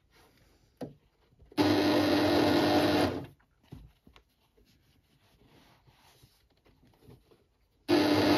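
Electric sewing machine stitching a seam in stop-start runs: it runs steadily for about a second and a half, stops, and starts again near the end. In the pause there are faint clicks and rustles of the fabric being repositioned.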